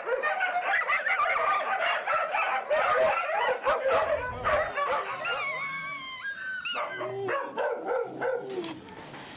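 Many caged dogs in a dog pound barking, yelping and whining at once, a dense chorus that thins out in the second half, with high whines sliding in pitch.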